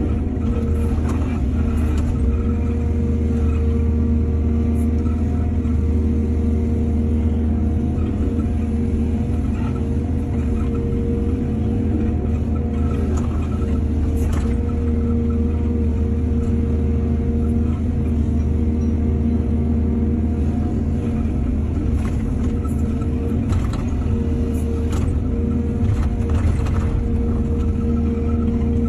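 Excavator engine running steadily under work, with a few short knocks and clanks scattered through, more of them in the second half.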